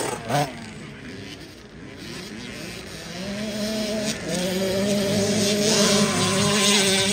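Small dirt bike engines on a race course: one is briefly loud right at the start, then another engine comes in about three seconds in and grows louder, holding a fairly steady pitch to the end.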